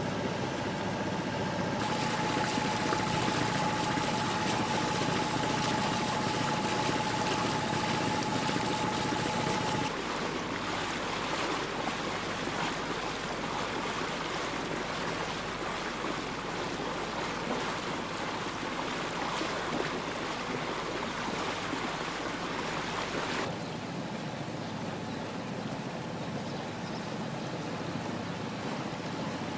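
Small sailing yacht motoring along: its engine running under a steady rush of water and wind noise, which changes abruptly about 2, 10 and 23 seconds in. A steady thin whine sounds from about 2 to 10 seconds in.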